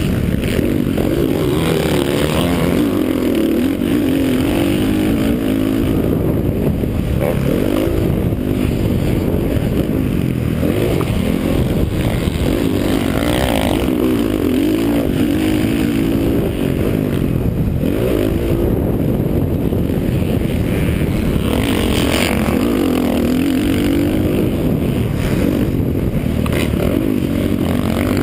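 Dirt bike engine picked up by a helmet camera, revving up and down with the throttle and gear changes as it is ridden around a motocross track.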